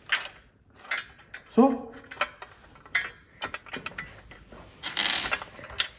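Scattered metal clicks and clinks of bolts, washers and nuts being fitted by hand to a sewing-table frame, with a short rasping sound about five seconds in.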